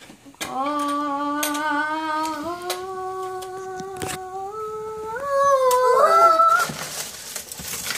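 A voice holds one long wordless note, stepping up in pitch twice and gliding higher before it stops, like a mock fanfare for opening the treasure box. A few sharp clicks sound under it.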